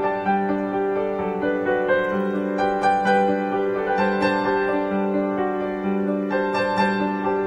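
Background piano music: a melody of separate notes over a held low note.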